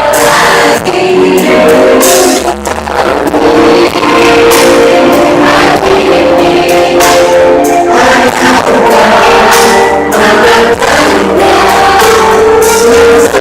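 A live pop band playing with sung vocals and a steady beat of percussion, played very loud through a PA loudspeaker close by.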